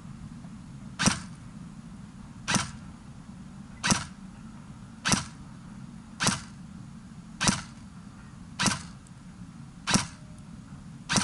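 Airsoft electric rifle (AEG) with an M120 Tornado spring firing single shots of 0.20 g BBs through a chronograph, at nearly 440 fps. About nine sharp shots come one every 1.2 seconds or so, each a short snap of the piston and gearbox cycling.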